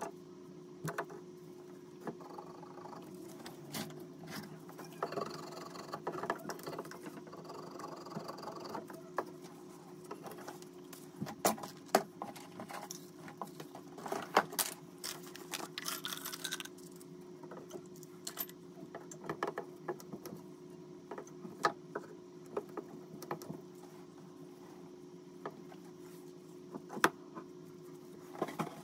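Scattered clicks, knocks and light metallic clinks of tools and the camera being handled, over a steady low hum.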